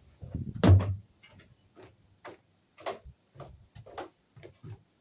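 A heavy thump under a second in, then footsteps on wooden deck boards, about two steps a second.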